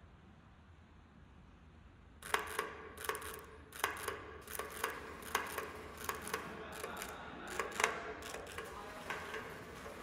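Steel-and-paper shaking-table sound sculpture ticking and rattling in quick, irregular clicks, some in pairs, about two a second, over a faint steady tone from its heartbeat and sine-tone sound score. The clicking starts about two seconds in, after near quiet.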